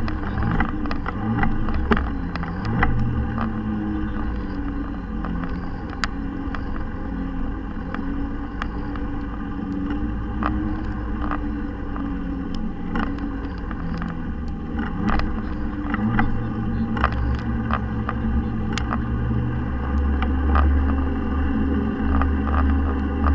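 Razor electric motorcycle running under way, its motor whine rising and falling in pitch with speed, over a low rumble and scattered sharp clicks and rattles picked up by the handlebar-mounted camera.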